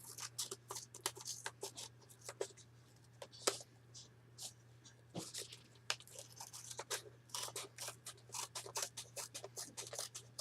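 Small novelty scissors from a Gundam RX-78-2 pen-and-scissors set snipping again and again: a string of short, irregular clicks and crunches. The blades are blunt and cut roughly, not very smooth at all.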